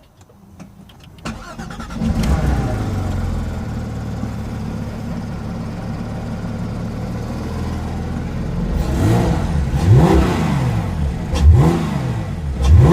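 Porsche 991 GT3 RS 4.0-litre flat-six with a full Akrapovič exhaust starting up, flaring about two seconds in and settling into a steady idle. From about two-thirds of the way through it is blipped in several quick revs, each rising and falling.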